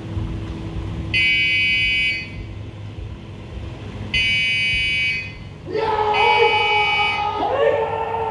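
An electronic round timer beeps three times, each beep about a second long, marking the start of a kendo bout. From the third beep onward, kendoka let out long, drawn-out kiai shouts that rise and fall in pitch.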